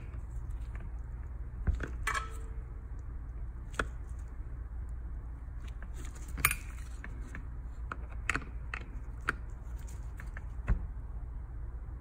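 Scattered sharp metallic clicks and taps as channel-lock pliers work against the clutch hub nut's lock washer, bending up its restraining tabs, with the loudest click about six and a half seconds in.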